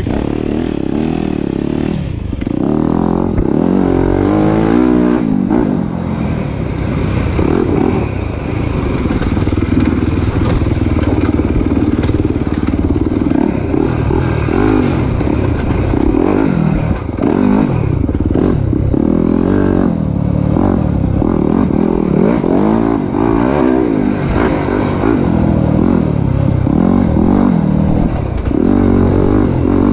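Dirt bike engine heard from a camera mounted on the bike, its revs rising and falling constantly with throttle changes through the trail. Rattles and clatter from rough ground run under it.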